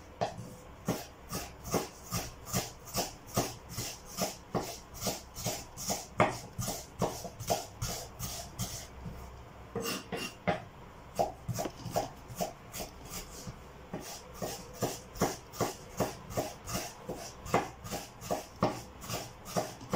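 Kitchen knife finely chopping peeled ginger on a cutting board: quick, even knocks of the blade, about two to three a second, with a brief break near the middle.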